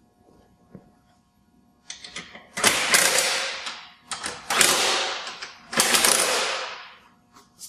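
Cordless impact wrench run in three bursts of about a second each, tightening the nuts on a rubber track unit, with a few short clicks before and between them.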